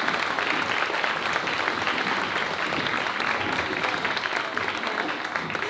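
Seated audience applauding, many hands clapping steadily.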